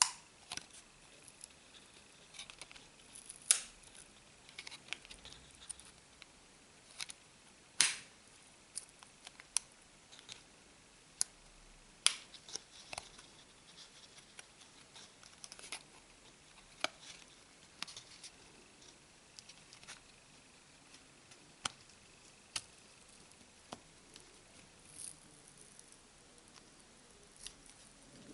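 Plastic card sliding under a lightly glued small circuit board inside an Orange Fova phone to pry it loose, making faint scraping and scattered small sharp clicks of plastic on plastic.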